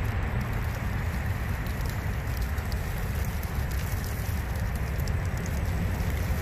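Outdoor field noise: a steady low rumble like wind on the microphone, with fine, continuous crackling like dry leaves and twigs being crushed as an RC crawler moves over them.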